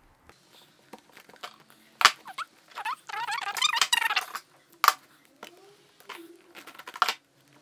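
Flat plastic weaving strip being threaded and dragged through the woven plastic of a tote bag: a few sharp clicks and snaps, and a stretch of about a second of rapid squeaking as the strip rubs through the weave.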